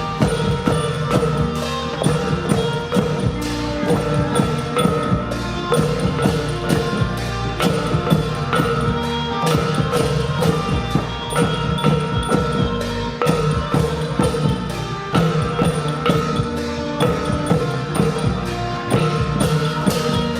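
Isan pong lang ensemble playing: rapid struck notes on the wooden log xylophone over a steady drum beat.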